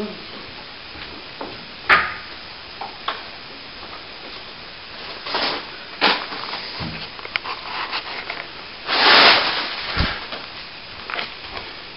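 Scattered knocks, clicks and scrapes of hand work on plaster mouldings and a metal scaffold in a small hallway, over a steady hiss. About nine seconds in there is a louder scraping rustle.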